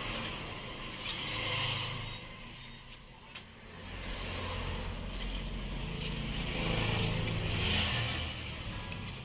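Low engine rumble of passing road vehicles, swelling and fading in waves, with one short sharp knock about three seconds in.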